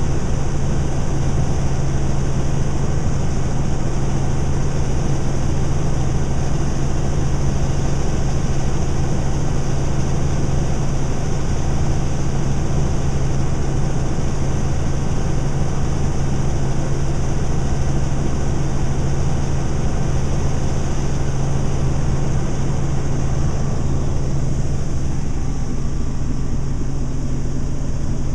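Helicopter engine and rotor noise heard inside the cabin in flight: a loud, steady drone with a strong low hum.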